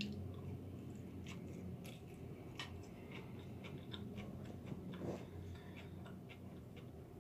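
A person chewing a mouthful of rice and vegetables with closed mouth, close to the microphone: faint, scattered small wet mouth clicks over a steady low hum.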